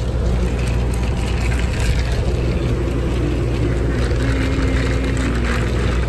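A steady low rumble of background noise with a haze of hiss over it, and a faint held hum for a second or so near the end.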